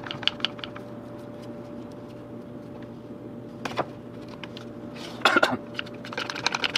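Plywood shelf pieces knocking and clicking as they are handled, with a quick run of sharp knocks about five seconds in, over a faint steady hum.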